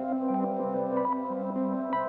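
Background ambient music: soft, sustained synthesizer-like notes with gentle chimes.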